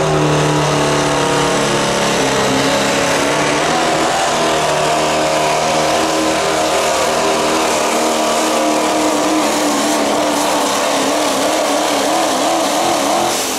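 Super stock turbocharged diesel pulling truck running flat out under load as it drags a weight sled, a loud steady engine note whose pitch wavers near the end of the pull. The engine cuts back right at the end as the pull finishes.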